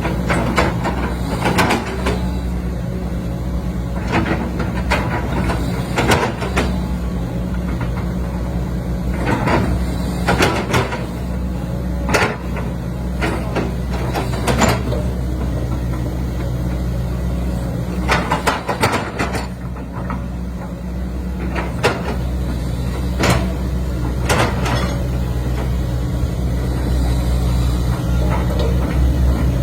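Heavy construction machine's diesel engine running steadily, with sharp metallic knocks or clanks at irregular intervals about a dozen times.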